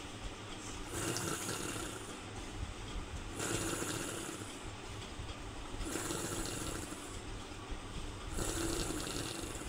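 Seizure patient's noisy, snoring breathing, one rasping breath about every two and a half seconds, four in all. This is the stertorous breathing typical after a generalised tonic-clonic seizure.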